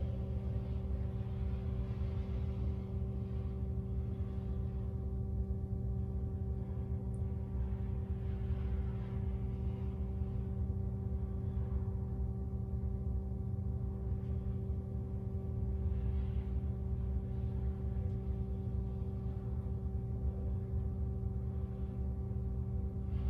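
A steady mechanical hum of several constant tones over a low rumble, like a room appliance running, with faint rustling now and then.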